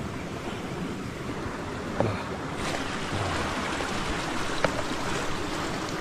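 Mountain stream rushing steadily, a little louder from about two and a half seconds in, with a couple of light knocks.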